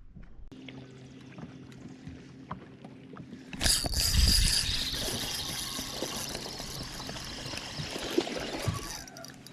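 Water rushing and pouring, starting abruptly about three and a half seconds in and running on steadily before easing near the end, over a faint low hum.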